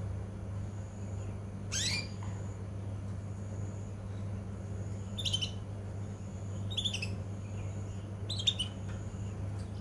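Young male orange canary giving short chirps, four brief calls a second or two apart, the first a quick rising sweep: a young bird still at the chirping stage, not yet in full song. A steady low hum runs underneath.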